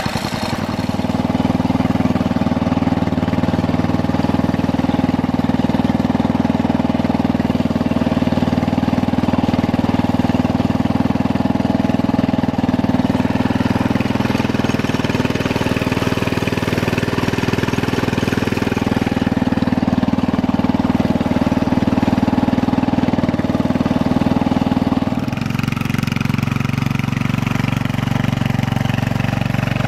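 Panzer T758ES garden tractor's Kohler K181 single-cylinder engine running steadily. About 25 seconds in its sound drops slightly and changes tone, then runs on steadily.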